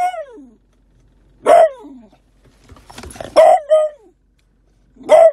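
Beagle puppy baying: a string of loud, short bays, each dropping in pitch at its end, coming every second or two, with two in quick succession past the middle.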